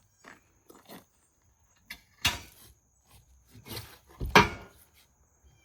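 Knocks and clunks of parts and packaging being handled while unpacking a sawmill shipping crate: a few light taps, then a sharp clunk about two seconds in and a louder one just past four seconds.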